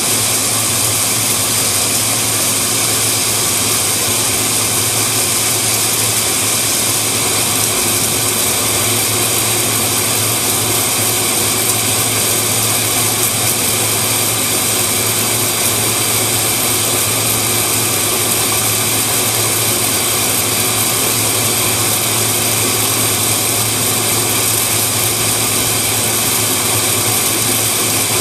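Submerged arc welding rig running: a steady, even rushing noise from the flux recovery vacuum drawing up flux behind the weld, over a constant low hum.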